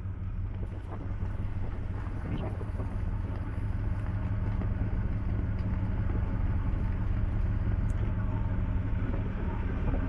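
Steady low drone of a river ferry's engines and machinery, a hum of several low tones that grows slightly louder.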